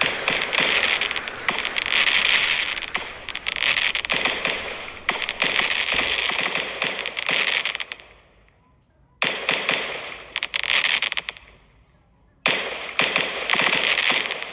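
Fireworks crackling densely, a rapid dense crackle with occasional dull booms. The crackle dies away about halfway through, comes back suddenly, fades again, and comes back suddenly once more near the end.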